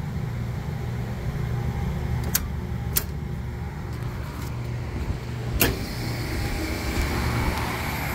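Steady low hum of rooftop refrigeration equipment, broken by two sharp clicks as the tripped compressor breaker is reset, then a louder clack about five and a half seconds in as the newly fitted three-pole contactor pulls in and the condensing unit's compressor starts running.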